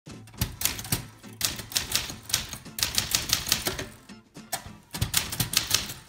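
1958 Royal Quiet de Luxe manual typewriter being typed on, its typebars striking the platen in quick runs of several sharp clacks a second, with brief pauses between words.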